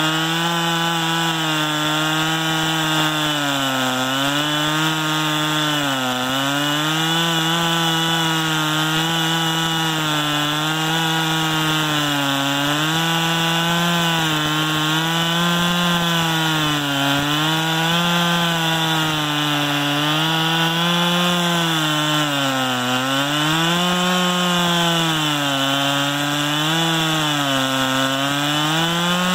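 Chainsaw on a homemade chainsaw mill cutting lengthwise through a red pine log. The engine runs at high speed without a break, its pitch sagging and recovering every couple of seconds as the chain loads up in the cut.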